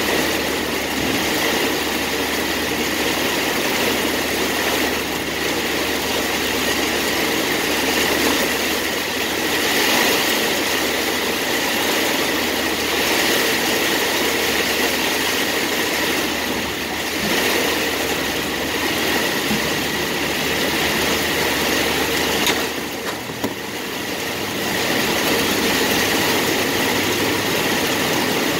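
Heavy rain drumming on a car's roof and windshield, heard from inside the cabin as a steady loud hiss, with the car's engine running underneath. It eases briefly about three-quarters of the way through.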